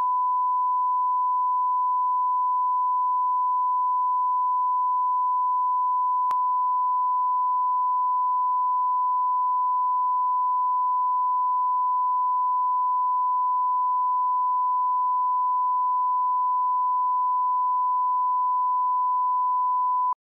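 Broadcast line-up test tone that accompanies colour bars: a single steady pure beep at 1 kHz, held at one pitch and one level and cutting off suddenly near the end. A faint click comes about six seconds in.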